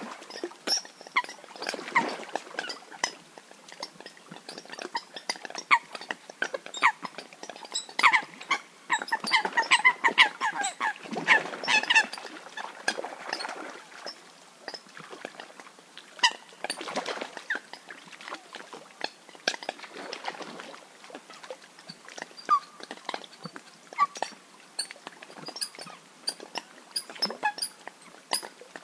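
A group of coots calling: many short notes and clicks overlapping in a busy chatter, thickest a third of the way in.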